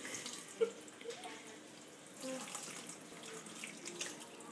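Kitchen faucet running into a stainless steel sink while a toddler drinks straight from the spout, with a few faint brief sounds over the water.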